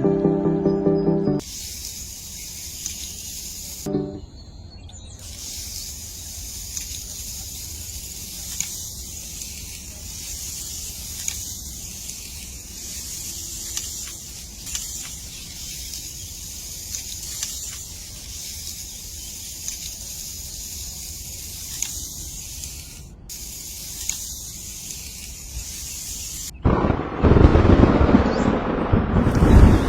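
Music that stops about a second and a half in, then a steady high hiss that drops out briefly a few times. Near the end, loud wind buffets the microphone.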